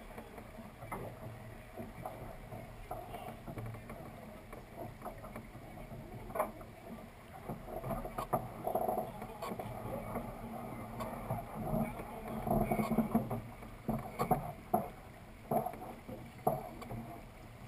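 Dufour 45e sailing yacht under way: a steady rush of water along the hull, with scattered sharp knocks and clicks from the deck.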